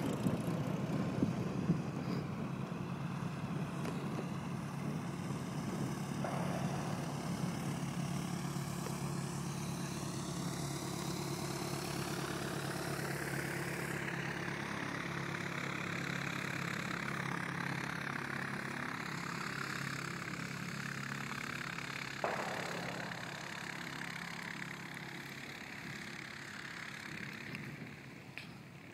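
Piston engine and propeller of a single-engine high-wing light aircraft running steadily, fading away over the last few seconds.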